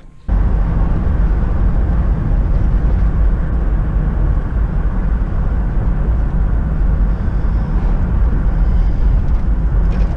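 Steady low rumble of engine and road noise inside the cab of a moving truck. It cuts in suddenly about a quarter second in and runs on evenly.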